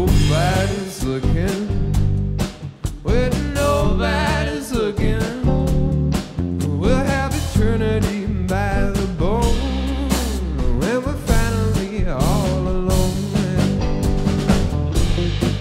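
Funk jam band playing live: drum kit, electric guitars and bass, with pitch-bending melodic lines over a steady beat.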